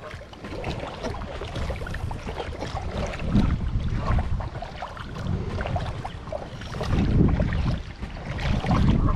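Water sloshing and splashing from someone wading, in irregular swells, with wind rumbling on the microphone.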